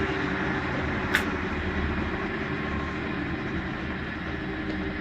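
Bendix 7147A washing machine running, a steady mechanical hum and rumble, with a single sharp click about a second in.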